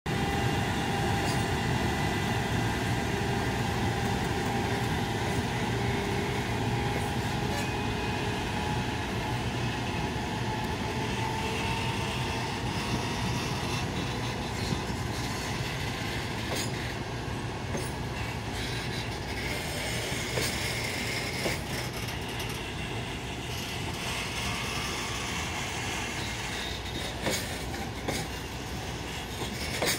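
Container freight train hauled by an EF510 electric locomotive rolling past, a steady rumble of wagon wheels on the rails. A faint whine rises slowly in pitch through the first half, and sharp clacks over rail joints come now and then in the second half.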